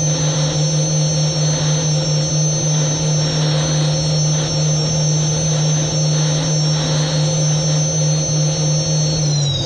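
Lycoming T55 gas turbine of an unlimited hydroplane running at steady high power, heard on board: a high whine over a deep drone. Near the end the whine starts to drop in pitch.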